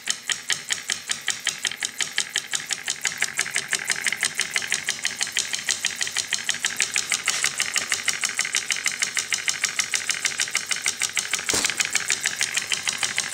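Homemade solenoid engine running off an 18-volt drill battery: the solenoid plunger snaps in and out several times a second, a fast, even clatter of clicks as it drives a CD flywheel through a paper-clip contact. One louder knock near the end.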